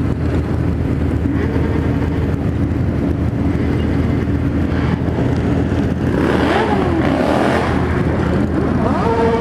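Motorcycle engines in a slow group ride: a steady engine drone throughout, with other motorcycles revving up and down in pitch during the second half.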